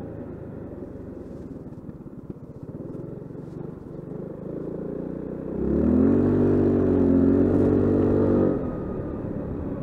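Honda SH 350 scooter's single-cylinder engine, running low while the scooter slows through a turn, then opened up hard about halfway through: a much louder engine note that holds an almost steady pitch as the automatic transmission pulls the scooter up to speed, eased off near the end.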